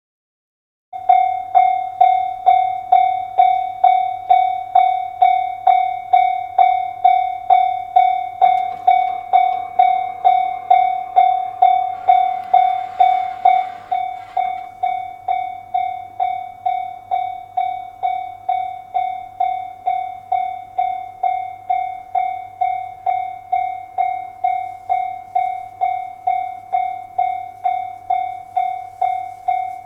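Japanese level-crossing warning bell, electronic, starting about a second in and ringing one repeated ding about twice a second. A rushing noise joins it from about 8 to 14 seconds in, after which the bell rings more quietly.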